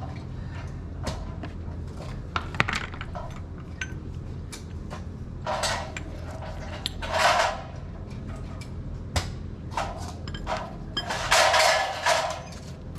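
Scattered sharp clinks and knocks, with a few longer bursts of scraping or rustling, from handling tools and parts while refitting a motorcycle's rear wheel, over a steady low hum.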